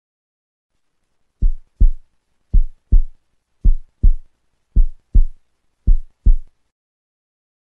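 Heartbeat sound effect: five deep double thumps in a lub-dub pattern, about one pair a second. It starts about a second and a half in and stops a second before the end.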